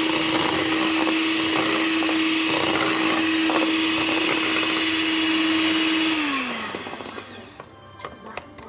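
Electric mixer running at a steady speed as its beaters work through cake batter, mixing in the flour. About six seconds in it is switched off and its whine falls in pitch as it spins down, followed by a few light knocks.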